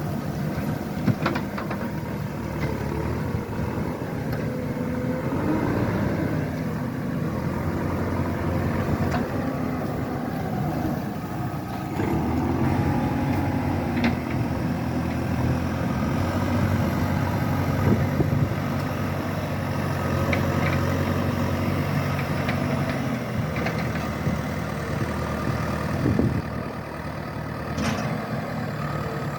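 An engine running steadily for the whole stretch, getting a little louder and shifting in pitch about 12 seconds in.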